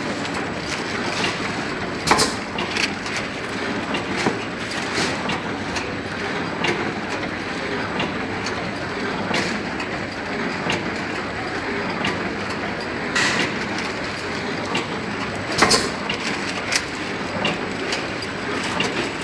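Six-track liquid sachet packing machine running: a steady mechanical clatter with sharp clicks now and then, a few of them louder.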